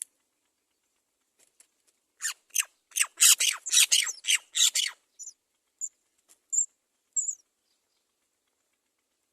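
Great myna nestling begging at the nest: a rapid run of rasping calls for about three seconds, then a few short, high chirps.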